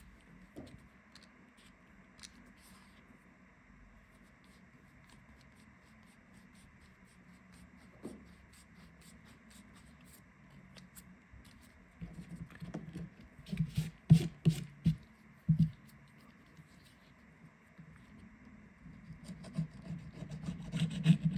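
Hands and small tools handling a smartphone on a workbench: light scratching and rubbing with faint clicks, then a cluster of louder knocks and scrapes a little over halfway through, and more handling near the end.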